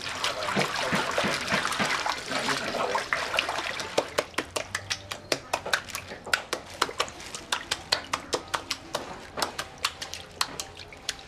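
Splashing or sloshing water for the first few seconds, then a steady run of sharp knocks at about three a second.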